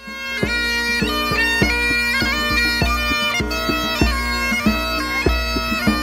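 Scottish Great Highland bagpipe playing a tune: quick melody notes over steady, unchanging drones.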